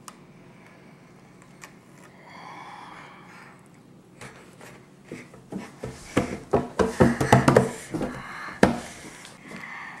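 Quiet room tone for about four seconds, then a busy run of clicks, knocks and rustling: a handheld camera being grabbed and jostled while people move about close to it.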